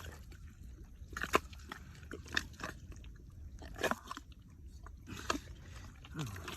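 Shallow muddy water sloshing and splashing in a handful of short, separate splashes, as hands and feet work in the water.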